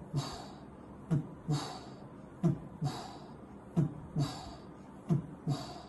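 Stethoscope recording of a heartbeat: paired first and second heart sounds about every 1.3 seconds. Each second sound is followed by a soft, fading hiss. This is the soft early diastolic murmur of aortic regurgitation.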